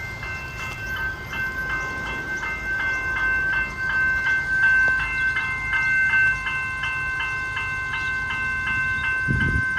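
General Signals Type 2 electronic level-crossing bells ringing, an even ding at about four strikes a second, over the low rumble of a passing train.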